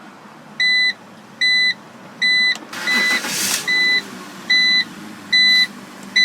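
BMW straight-six engine starting: a short loud burst of starter and engine noise about three seconds in, then a steady low idle. Throughout, a car's electronic warning chime beeps eight times at an even pace, a little more than once a second.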